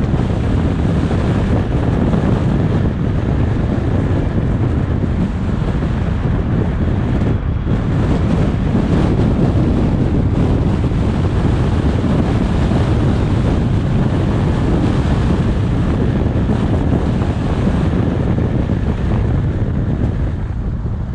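Steady rush of wind on the microphone over a moving car's tyre and engine noise.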